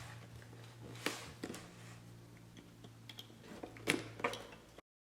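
Cardboard tool box being handled and opened: scattered clicks, scrapes and rustles, the sharpest about a second in and just before four seconds, over a steady low electrical hum. The sound cuts off abruptly near the end.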